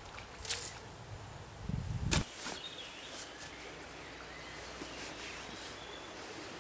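Fly line swishing through the air as a light fly rod is cast: two sharp whooshes, about half a second and two seconds in, then it goes quieter.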